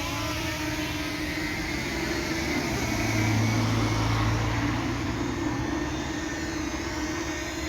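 Camera drone flying overhead, its propellers giving a steady whirring tone that wavers slightly, with a low rumble swelling around the middle.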